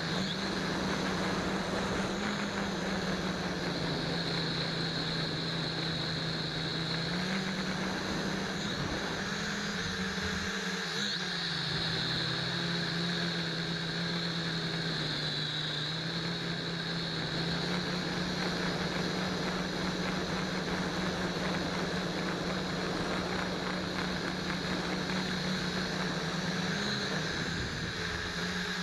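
Small quadcopter's motors and propellers buzzing steadily, heard close up from a camera mounted on the drone. The pitch steps up and down several times as the throttle changes, with a short drop about ten seconds in.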